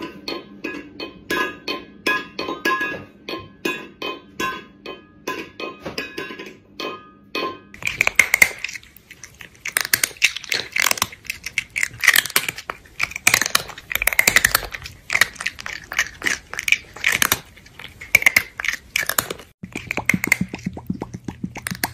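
Cartoonish eating sound effects: quick rhythmic smacking clicks at first, then from about eight seconds in, loud repeated crunching and munching.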